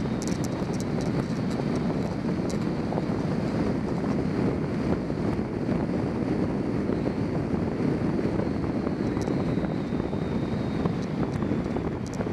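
Steady wind rushing over the microphone of a bike-mounted camera speeding downhill, with a few faint high clicks now and then.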